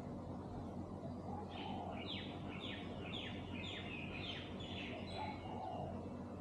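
A bird calling a run of about eight quick down-slurred high notes, roughly two a second, starting a second and a half in and ending shortly before the end, with a faint lower chatter at its start and near its end. Underneath is a steady low hum of background noise.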